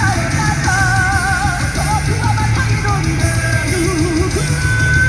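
Live rock band playing loudly, with a singer holding long notes with vibrato over heavy bass.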